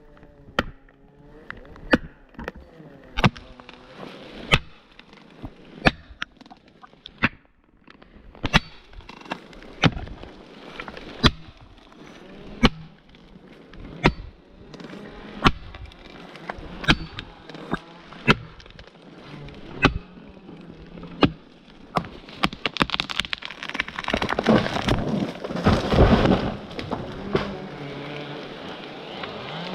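Steel blows driving a PowerWedge felling wedge into a tree's cut, a sharp ringing strike about every second and a half. About 23 seconds in, a long loud crackling rush takes over, strongest around 26 seconds: the wedged tree breaking over and falling.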